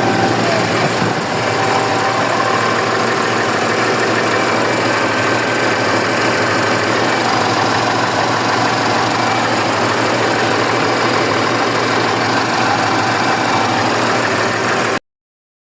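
Small generator engine running steadily at an even idle. The sound cuts off abruptly near the end.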